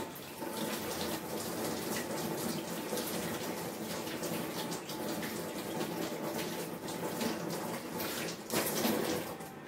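Kitchen tap running into a stainless-steel sink while dishes are rinsed by hand, the water splashing steadily. There is a louder splash near the end, then the sound drops away.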